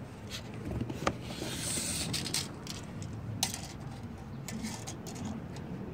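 Quiet handling of a tape measure as it is pulled out and laid along the light bar: scattered light clicks and a brief scrape about a second and a half in.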